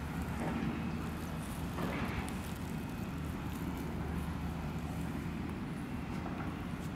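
Steady low outdoor rumble, with a brief faint rustle about two seconds in.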